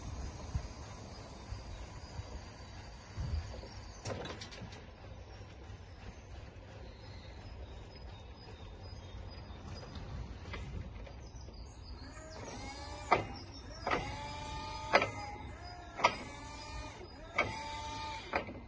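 Hydraulic pump motor of a Hyster E2.0XN electric forklift, heard as a low steady noise while the raised mast comes down. Then, over the last six seconds or so, about six short runs of the pump about a second apart, each opening with a click and a whine that rises and then levels off as the mast hydraulics are worked.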